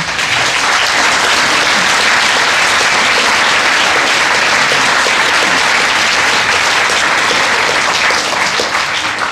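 Audience applauding, a dense steady clapping that rises at once, holds, and dies away near the end.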